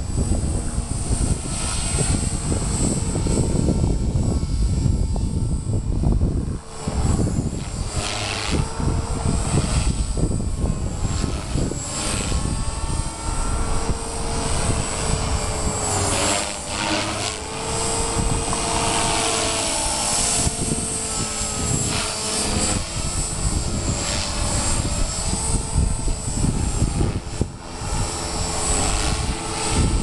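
Walkera V450 electric 450-size RC helicopter flying 3D aerobatics at a distance. Its rotor and motor whine slides up and down in pitch with the manoeuvres under heavy wind buffeting on the microphone.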